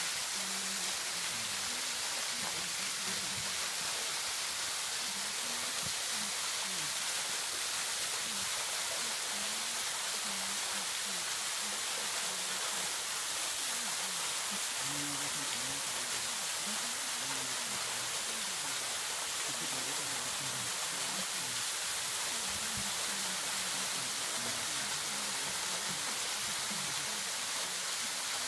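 Tall waterfall pouring over a rock face into a shallow pool: a steady, even rushing hiss. Faint voices of people talking come through under it now and then.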